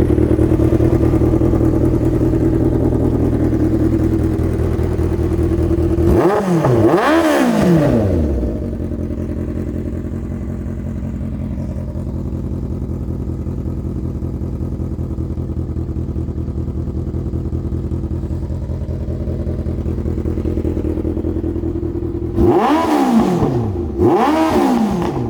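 1980 Honda CB750's air-cooled inline-four motorcycle engine idling just after starting, running well on a freshly installed donor engine. It is blipped twice about six seconds in, then settles to a lower, quieter idle, and is blipped twice more near the end.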